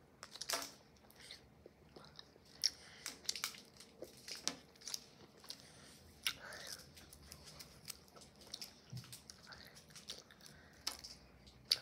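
A child chewing and biting a piece of soft, chewy Airheads taffy candy close to the microphone: quiet, irregular mouth clicks and smacks.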